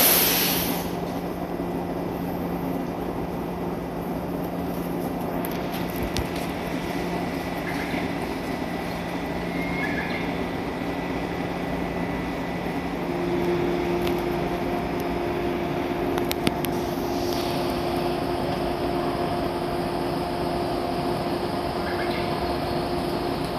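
Shinano Railway 115 series electric train standing at the platform, its onboard equipment humming steadily, with a brief hiss at the very start. About 13 seconds in, the hum shifts to a higher tone.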